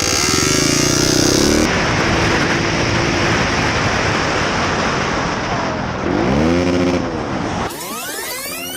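Motor vehicle engines running with road noise across several short clips; near the end an engine twice revs up and back down.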